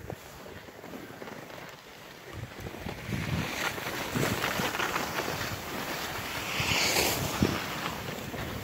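Wind rushing over a phone microphone, building up from about two and a half seconds in, with a few soft thuds.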